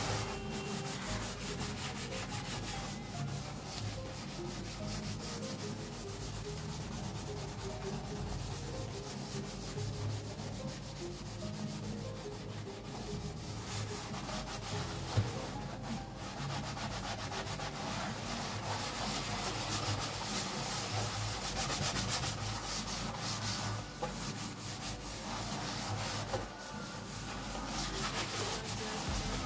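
A sponge scrubbing a soapy white kitchen sink basin in quick back-and-forth rubbing strokes, with one sharp knock about halfway through.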